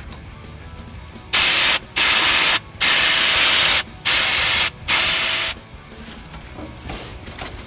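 Pressurised spray hissing in five short bursts over about four seconds, the longest about a second, each starting and stopping sharply, as oily hydraulic cylinder parts are cleaned.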